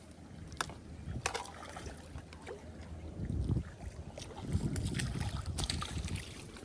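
Wind buffeting the microphone: a low rumble that swells twice, about three and four and a half seconds in, with a few faint clicks.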